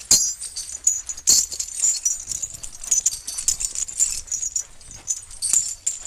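Heavy iron chains on a walking elephant clinking and jangling irregularly, with a sharp clank right at the start and another about a second in.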